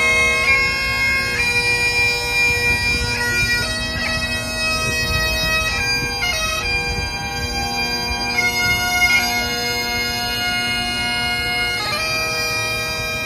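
Bagpipes playing a tune over a steady drone.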